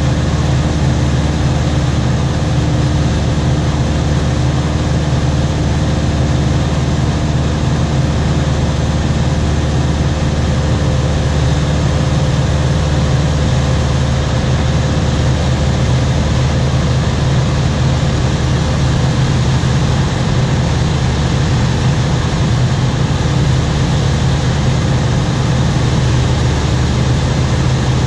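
Single-engine light aircraft's piston engine and propeller droning steadily, heard inside the cabin, with an even rush of noise over the low hum.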